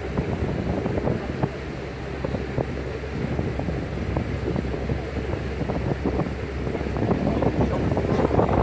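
Wind buffeting the microphone, over the steady low hum of the motor yacht's engines cruising at slow speed.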